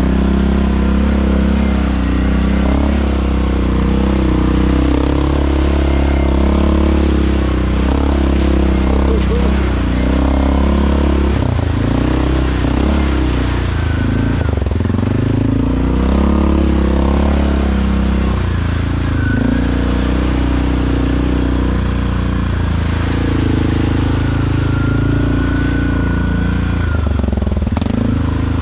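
ATV engine running under changing throttle while being ridden, its pitch rising and falling.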